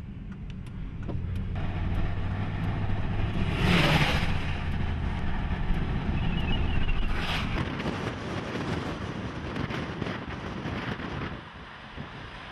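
Car engine and road noise heard from inside the cabin as the vehicle drives off, building over the first few seconds, with two brief loud whooshes about four seconds in and again three seconds later. Near the end it drops to a quieter, more wind-like noise.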